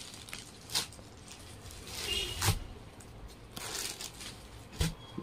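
Saree cloth rustling and swishing in several bursts as it is handled and unfolded, with a sharp tap near the end.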